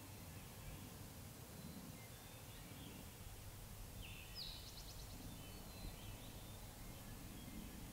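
A songbird sings one short, high, chirping phrase about four seconds in, with a few fainter chirps scattered around it, over quiet spring woodland ambience.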